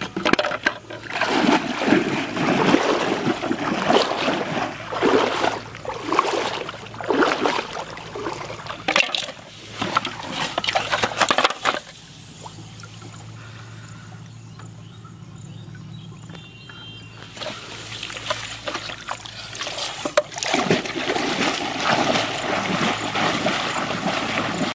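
Shallow floodwater splashing and sloshing irregularly for the first half. After a quieter stretch, a steady run of splashing starts near the end as a person wades through knee-deep water in a flooded field.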